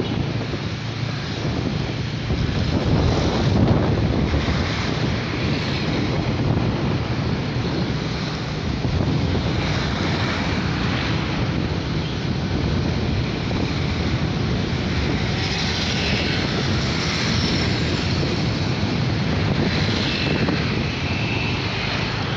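Steady engine drone and road noise heard from a vehicle moving through street traffic, with no big changes throughout.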